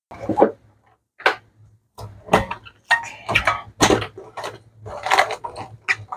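Plastic cling wrap pulled off its roll and stretched over a stainless steel bowl, crinkling and crackling in quick irregular strokes, after a few separate sharp clicks in the first two seconds.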